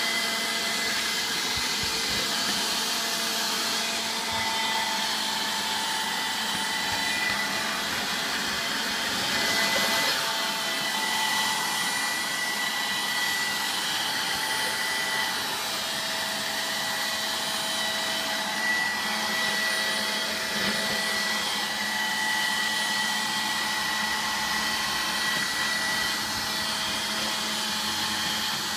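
Electrolux Rapido cordless handheld vacuum cleaner running steadily: a motor whine over rushing air, swelling slightly about ten seconds in.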